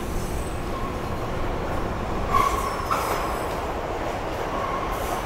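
Subway train running, heard from inside the car: a steady rumble, with a brief wheel squeal about two and a half seconds in and a sharp click just after.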